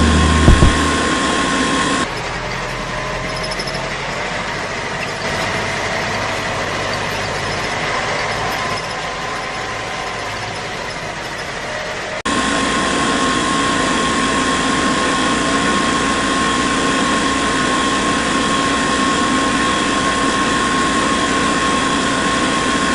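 Small electric motor of a homemade model machine running steadily with a high whine. The sound changes abruptly twice, dropping in level about two seconds in and coming back louder about halfway through.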